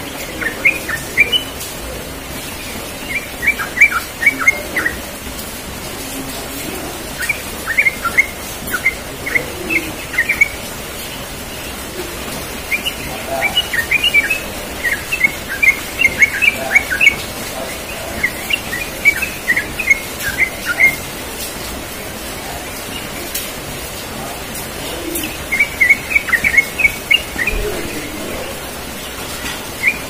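Yellow-vented bulbul singing: short bursts of quick, bubbly chirping notes, about seven phrases a few seconds apart, over a steady background hiss.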